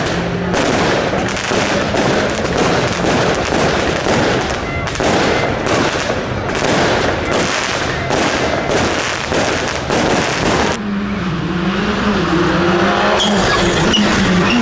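Rally car at speed on a gravel stage: engine running hard under a wash of tyre and gravel noise that comes in repeated loud surges. About eleven seconds in the noise drops back and the engine note stands out, rising and falling as the revs change.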